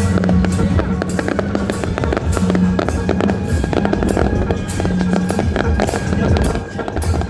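Fireworks bursting and crackling in a dense, irregular barrage over steady music.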